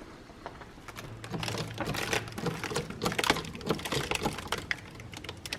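Irregular clicking and scraping of masonry work, with a trowel and bricks handled in mortar. A faint low hum comes in about a second in.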